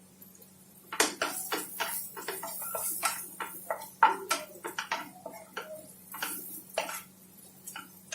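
A spatula scraping and clicking against a frying pan as sliced vegetables and spices are stirred and fried. The strokes are quick and irregular, starting about a second in and stopping shortly before the end.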